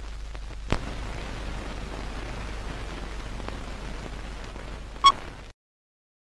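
Steady hiss of room noise over a constant low hum, with a sharp click about a second in and a short bright ringing clink near five seconds; the sound then cuts off to silence.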